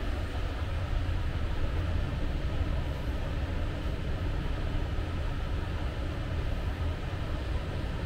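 A steady low rumble with an even hiss above it, with no breaks or distinct events.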